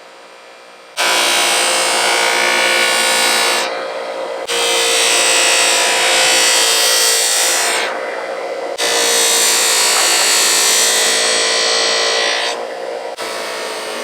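Power buffing wheel running with a loud rushing whine as the wooden knife handle is buffed. The loud sound starts suddenly about a second in and comes in three long stretches, each broken by a short quieter dip.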